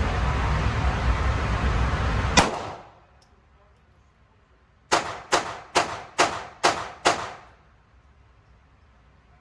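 IWI Masada Slim 9mm pistol firing six shots in quick succession, about two a second, each a sharp crack with a brief ring. Before that, a loud steady rushing noise ends abruptly with a single sharp crack about two and a half seconds in.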